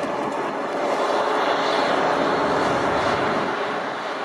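Airliner passing, its engine noise swelling to a peak about two seconds in and then easing off.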